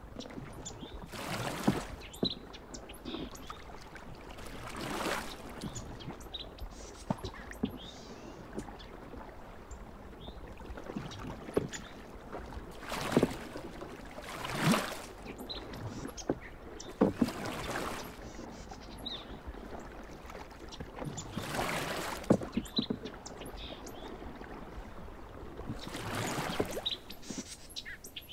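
Kayak paddle strokes dipping and splashing in calm pond water, a swell of splash every few seconds at an uneven pace, with small sharp drips and clicks between strokes.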